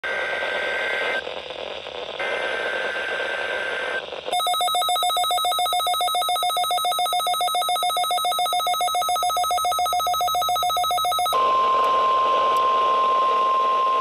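NOAA weather radio receiving a Required Weekly Test. First come two bursts of the buzzing two-tone SAME digital header. Then the receiver gives a rapid electronic beeping of about five beeps a second for some seven seconds, and then the steady single-pitch NOAA alert tone begins.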